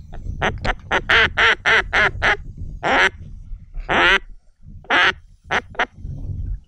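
Hand-blown mallard duck call quacking, imitating a hen mallard: a few short quacks, then a quick run of six or seven, then several longer single quacks about a second apart. A low rumble runs underneath.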